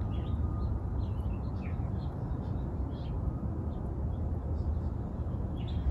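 Outdoor garden ambience: small birds giving short, faint, scattered chirps over a steady low background rumble.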